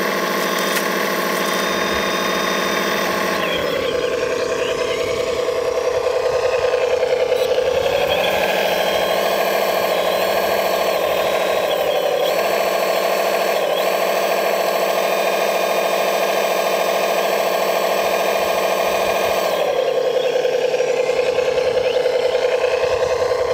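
Radio-controlled scale model machine running with a steady engine-like drone. Its pitch drops a few seconds in, rises again and holds, then drops back near the end.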